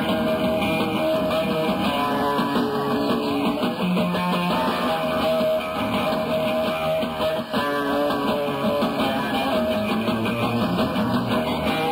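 Live rock band playing, with electric guitar to the fore, at a steady, full level throughout.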